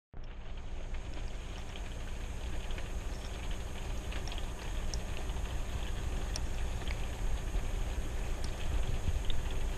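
Steady low hum and rushing background noise, with small scattered soft clicks and squelches from a plastic fork stirring thick chili in a bowl.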